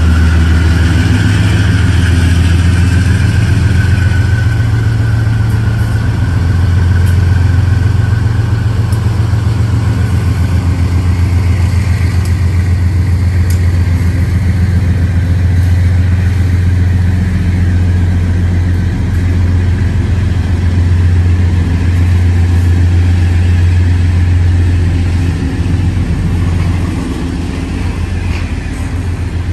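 A heavy engine running steadily with a deep, even rumble. A faint high whine in the first few seconds fades away, and the sound eases slightly near the end.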